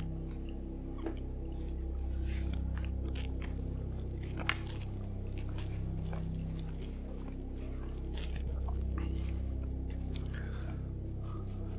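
Camera handling noise: scattered faint crackles and clicks, with one sharp click about four and a half seconds in, over a low droning hum.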